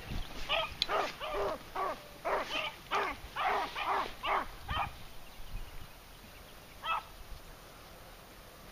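Beagles baying in short repeated calls, about two or three a second, for the first five seconds, then one more call a couple of seconds later: hounds giving tongue while running a rabbit.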